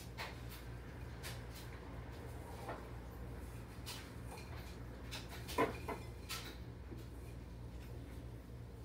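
Plastic bags and packages rustling as items are rummaged through and handled on a kitchen counter, with scattered light clicks and one sharper knock about five and a half seconds in, over a steady low hum.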